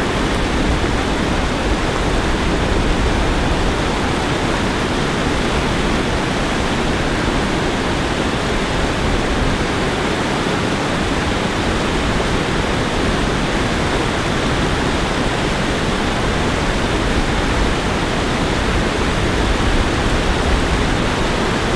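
Steady rush of white water pouring over a low river weir, an even, unbroken noise.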